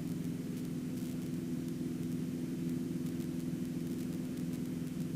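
Cessna 150-D's Continental O-200 four-cylinder engine running at a steady speed, a constant low drone with a faint hiss over it.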